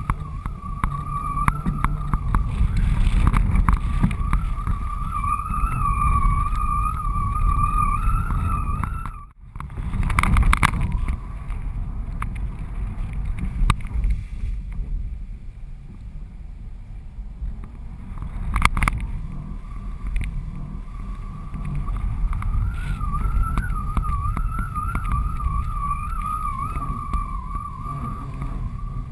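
Wind rushing and buffeting over a GoPro mounted on the strut of a flying kitesurfing kite, a steady low rumble. A wavering high whistle comes and goes over it, strong early on, gone after about 9 s and back again later. The rumble drops out briefly about 9 s in, and a few sharp crackles come around 10 s and 19 s.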